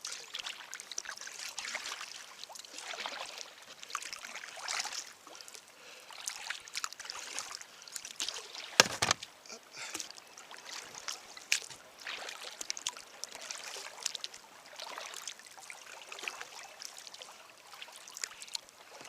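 Kayak paddle strokes swishing through the water, roughly one every couple of seconds, with water dripping and trickling off the blades between strokes. A single sharp knock about nine seconds in.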